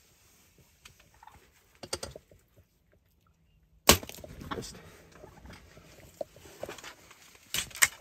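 Compound bow fired at a turkey from a ground blind: after a hush, a single sharp crack of the string and limbs about four seconds in. Rustling follows, and a few quick sharp knocks near the end.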